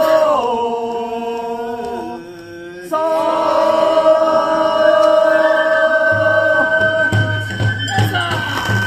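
Festival music made of long held melodic tones that slide and step between pitches, like a chanted or sung line. It drops quieter for about a second near the two-second mark, then resumes, and a low steady hum comes in underneath about six seconds in.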